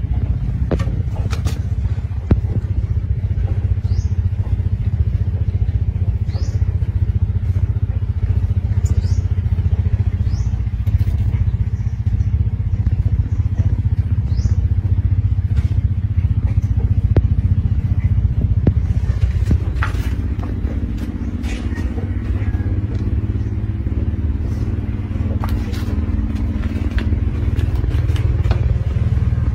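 Steady low engine-like rumble running throughout, with short high rising chirps every second or two in the first half and scattered sharp clicks.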